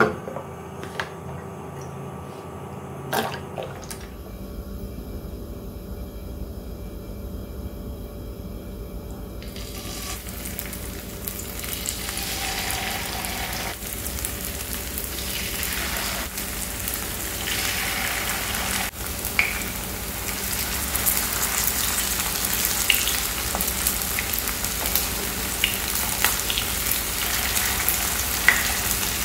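Potato patties (aloo tikki) shallow-frying in hot oil in a nonstick pan: the oil sizzles, quiet at first, then builds up from about ten seconds in and carries on steadily. A few sharp pops stand out over the sizzle in the second half.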